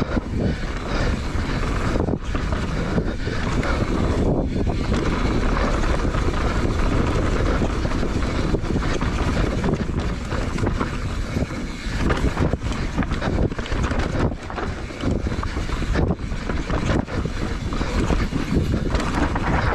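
Mountain bike descending a dirt trail at speed: steady rush of wind on the microphone over the rumble and clatter of tyres and bike on rough ground.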